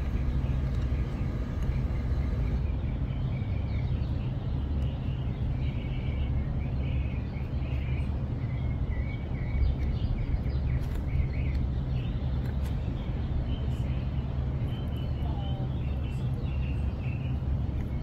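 Outdoor ambience: a steady low rumble with birds chirping on and off.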